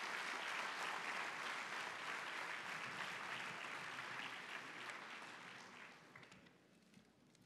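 Audience applauding: steady clapping from many hands that fades away over the last couple of seconds.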